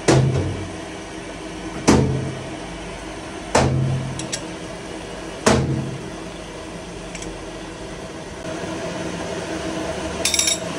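Lathe machine running with a steady hum, broken by four sharp metallic clunks about two seconds apart, each followed by a short low hum and ringing. A quick rattle of small clicks comes near the end.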